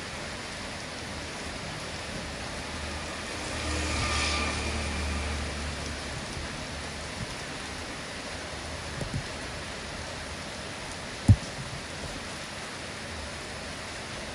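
Steady hiss of rain falling. A low rumble swells and fades about four seconds in, and a single sharp knock about eleven seconds in is the loudest sound.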